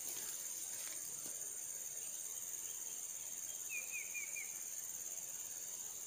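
Steady, high-pitched drone of insects, with a quick run of four short falling chirps from a bird about two-thirds of the way through.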